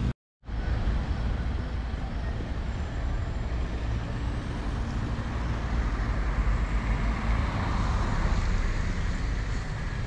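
A motor vehicle on the road: a steady low rumble of engine and road noise, after a brief cut to silence at the very start.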